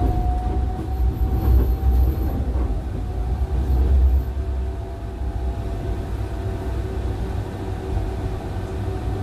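Tram riding along its track, heard from inside the car: a low rumble of wheels on rail with a steady whine that rises slightly in pitch during the first two seconds. The rumble is heaviest in the first four seconds and then eases a little.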